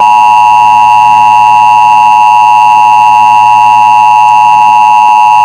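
Emergency Alert System attention signal: a loud, steady two-tone alarm of pure tones (853 and 960 Hz sounded together). It warns that an emergency alert message is about to be broadcast.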